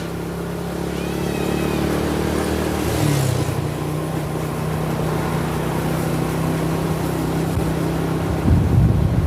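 Road vehicle engine running at a steady speed, a constant hum that steps up slightly in pitch about three seconds in, with a rougher rumble starting near the end.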